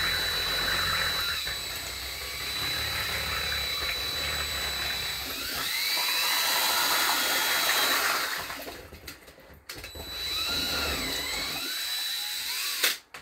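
Drill with a paddle mixer running in a bowl, stirring casting plaster and water to a batter-like mix, with a steady motor whine. It stops about two-thirds of the way through, runs again briefly, then stops. A sharp click comes near the end.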